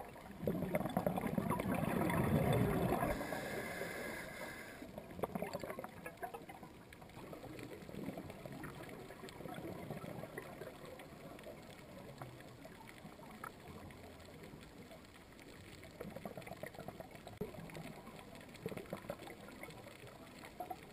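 Scuba diver's breathing heard underwater through the regulator: exhaled bubbles rumble for about three seconds, then there is a short hiss of inhaling. After that come faint scattered crackling and clicks.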